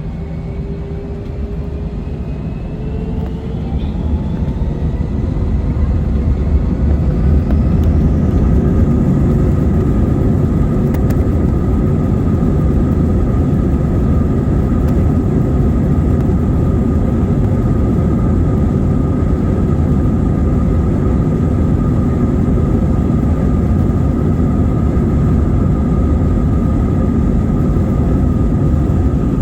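Airliner jet engines heard from inside the cabin, spooling up. Their whine rises in pitch and grows louder over the first eight seconds or so, then settles into a steady loud roar with a constant whine on top, as when engines go to high thrust.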